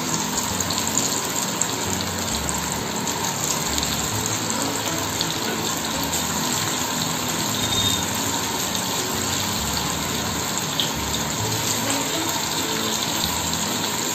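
Breaded chicken fingers deep-frying in a kadai of hot oil: a steady sizzle of bubbling oil.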